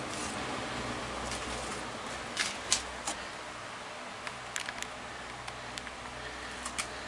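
Steady room noise, a hiss over a low hum, with a few short faint clicks and taps scattered through it.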